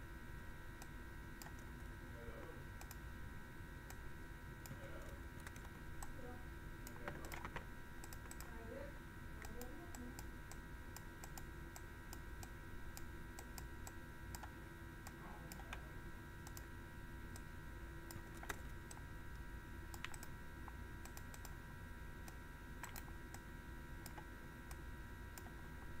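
Faint, irregular clicks and taps of a stylus on a pen tablet as handwriting is drawn, over a steady electrical hum.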